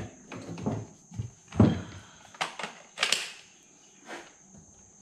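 A string of irregular knocks and metal clanks from tools and a mower blade being handled against a steel mower deck, the loudest a little over a second and a half in.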